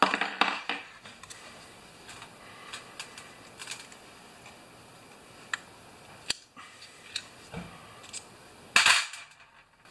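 Small metal clicks and taps of a screwdriver picking at a Stihl FS45 trimmer's diaphragm carburetor to get the fuel inlet screen out, with a rattle of parts at the start and a short, louder clatter near the end.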